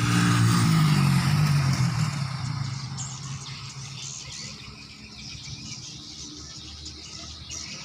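A motor vehicle's engine passing by, its pitch falling as it fades over the first few seconds. After that, swiftlets twitter faintly and high-pitched.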